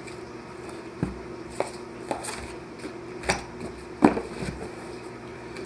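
Cardboard box and packaging being handled on a table: about five short taps and knocks, the loudest about four seconds in.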